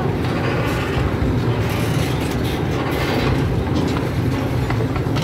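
Miniature zoo train running along its track, heard from the car just behind the locomotive: a steady low rumble and drone, with a few light clicks from the wheels.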